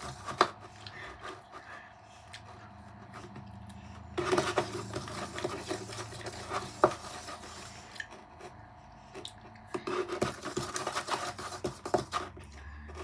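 Close handling noises from a lollipop and its candy dip packet: rubbing and scraping, with a few sharp clicks.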